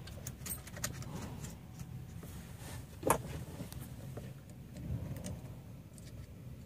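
Small metallic clicks and clinks of snap ring pliers and a snap ring being handled at the steering shaft, with one sharper click about three seconds in.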